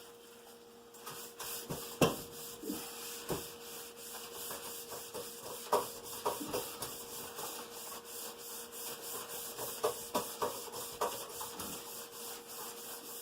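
A hot frying pan being rubbed and scraped clean, with a steady hiss and scattered knocks of the utensil against the pan.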